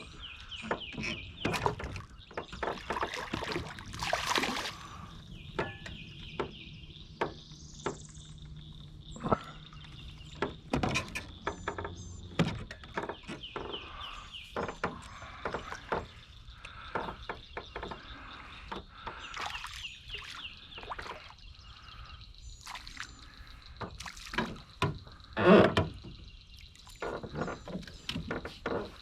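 Scattered knocks and clicks of handling gear in a small fishing boat, the loudest a sharp knock about three-quarters of the way through, with birds chirping.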